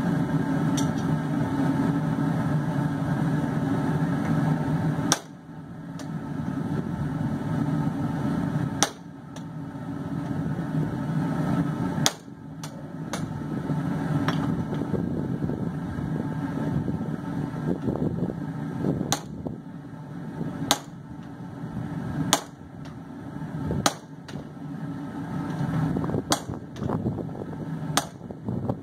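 Single hammer blows on steel, at first several seconds apart and then coming quicker near the end, over the steady drone of the forge running.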